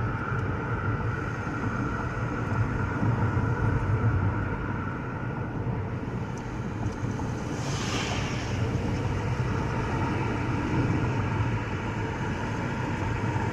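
Car driving, heard from inside the cabin: a steady low road and engine rumble, with a brief rushing hiss about eight seconds in.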